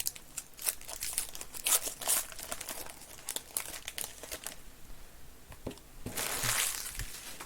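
Plastic wrapping crinkling in a run of sharp crackles, then a longer tearing rasp about six seconds in: a trading-card box or pack being unwrapped.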